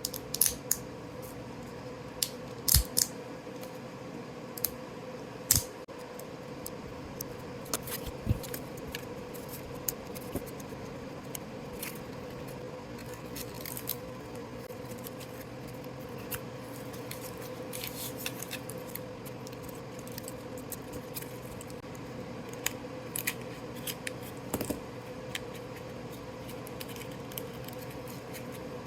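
Resin keycaps being handled, with irregular sharp clicks and taps of hard plastic on plastic. A steady low hum runs underneath.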